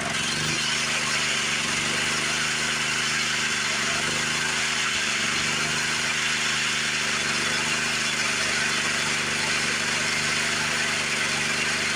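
Homemade sawmill's small engine running steadily, an even drone with a steady hiss above it.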